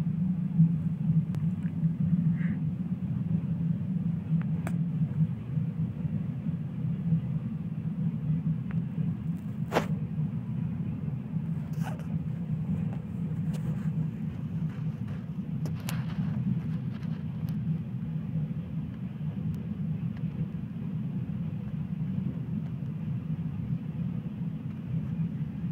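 Freight train of tank wagons rolling over a level crossing: a steady low rumble, with a few sharp clicks about five, ten, twelve and sixteen seconds in.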